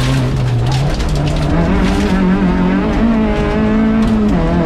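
Rally car engine heard from inside the cabin, pulling hard with its pitch climbing as the car accelerates. The pitch drops sharply near the end at a gear change.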